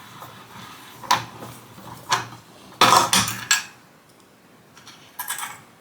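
Metal tools and loose roller hardware clinking as a dryer drum roller's bolt and wheel are taken off. There is a sharp clink about a second in, another a second later, a louder clattering cluster around three seconds, and a short rattle near the end.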